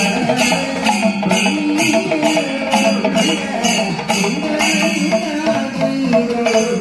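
Kerala temple percussion ensemble playing: brass hand cymbals (elathalam) clashing in a steady beat about three times a second with a drum, over a sustained, wavering melodic line.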